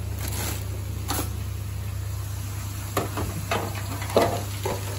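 Steady low hum of commercial kitchen equipment, with a few light knocks and clatters of metal kitchenware being handled, more of them in the second half.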